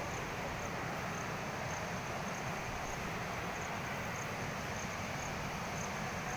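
Floodwater of a swollen river rushing past: a steady, unbroken wash of fast-flowing water, loud and even throughout.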